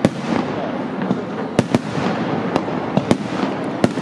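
Aerial firework shells bursting overhead: six sharp bangs in four seconds, two of them close together, over a continuous noisy din from the display.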